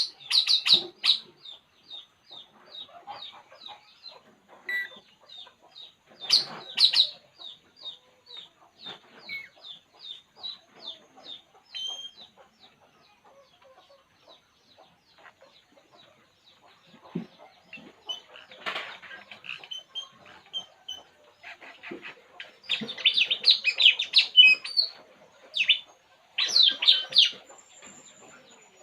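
A small bird chirping: a long run of short high chirps, about three a second, then louder bursts of rapid chirping in the last few seconds.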